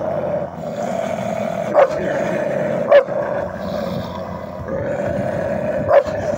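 Two Maremma sheepdogs growling at each other through a wire fence: a continuous rough growl, broken by three short, loud barks, about two, three and six seconds in.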